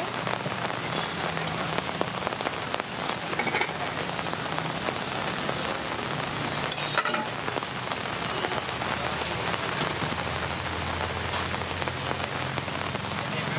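Steady rain falling on a wet street, with a few short clinks from steel serving vessels and a ladle.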